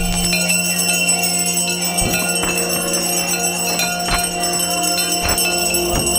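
Music with a steady low drone and jingling bells, with a few sharp struck beats at irregular spacing.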